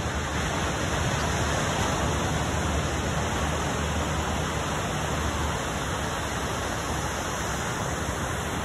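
Steady rushing noise of ocean surf, even in level throughout.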